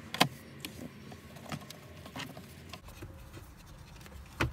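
2018 Ford F-150's plastic center console shifter and cupholder trim panel being worked loose by hand: scattered plastic clicks and knocks as its retaining pins give. The sharpest clicks come just after the start and near the end.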